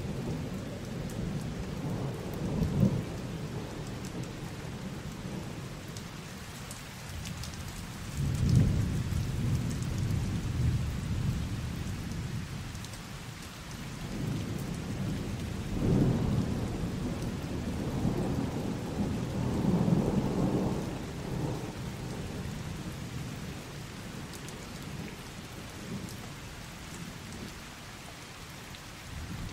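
Heavy thunderstorm: steady rain with rolling thunder. The rumbles swell up about 2 s in, about 8 s in, and twice more between about 16 and 21 s, then die down near the end.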